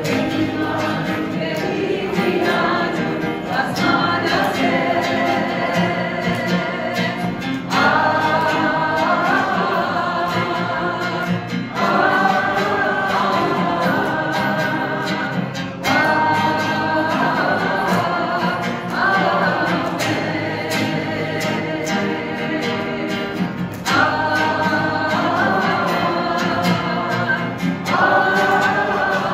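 Group of voices singing a song together, accompanied by an acoustic guitar, with a short melodic phrase repeated about every four seconds.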